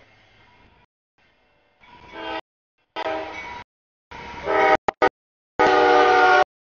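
CSX freight locomotive's multi-chime air horn sounding a series of blasts for the grade crossing. The blasts get louder as the train nears, and the last and loudest is held for about a second near the end.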